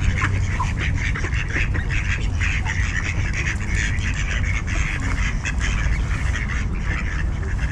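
Mallard ducks quacking, many short calls following one another without a break, over a steady low rumble.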